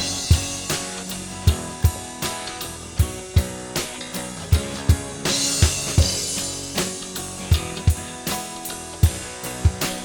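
Music with a full drum kit playing a steady beat, kick drum and snare over pitched instruments, with a cymbal crash about five seconds in.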